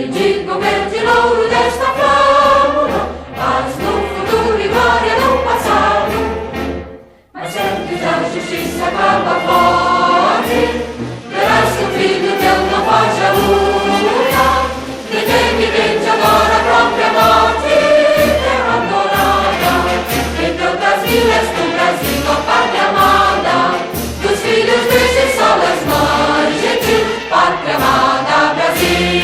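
Choir singing over instrumental accompaniment with a regular low beat. The music breaks off briefly about seven seconds in, then carries on.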